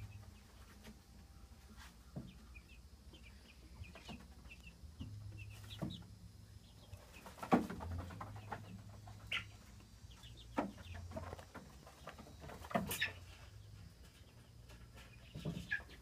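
Chickens clucking now and then, with several sharp knocks and taps in between, the loudest about halfway through and again near three-quarters of the way. A faint, steady low hum sits underneath.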